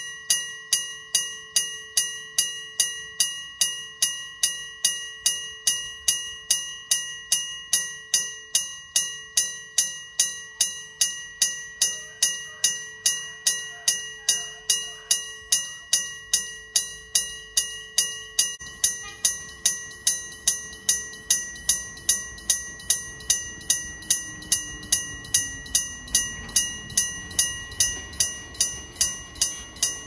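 Electric gong bell of a Japanese level crossing ringing its warning, a bell unit made between 1965 and 1974. It strikes rapidly and evenly, about two and a half times a second, and rings throughout. In the second half a low rumble builds as a train approaches the crossing.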